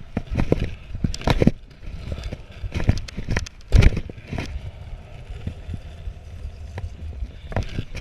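Stunt scooter wheels rolling on concrete with a low rumble, broken by a run of sharp knocks and clacks as the scooter hits the ramps, the loudest about four seconds in.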